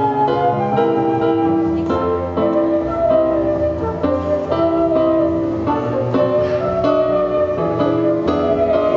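A small acoustic band playing live, with double bass, saxophone and flute on stage: a continuous run of pitched notes, some sharply plucked and some held.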